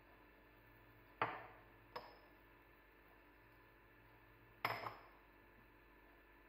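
Small glass prep bowls clinking against glass: a sharp clink about a second in, a lighter one soon after, and a quick double clink near the end, each with a short ringing tail.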